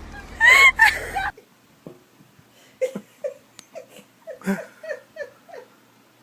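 A loud, shrill cry that cuts off suddenly, then short repeated bursts of a person's laughter.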